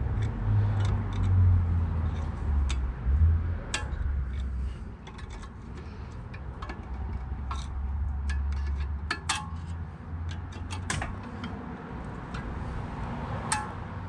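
Flat-blade screwdriver prying and scraping at the spring clip on a front brake caliper: irregular sharp metallic clicks and clinks, a dozen or so, over a low rumble.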